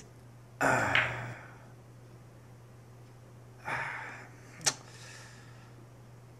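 Pool balls knocking and rolling on a pool table after a shot: a knock with a fading rattle about half a second in, another near four seconds, and a sharp click just before five seconds. A steady low hum runs underneath.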